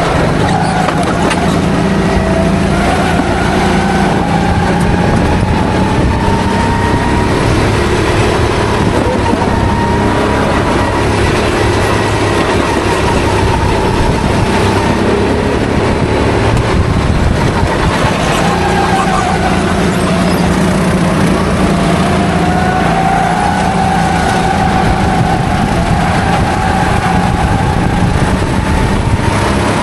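Onboard sound of Sodi rental race karts' engines running at racing speed. The engine note climbs and dips slowly as the throttle opens and eases through the corners, with other karts' engines running close by.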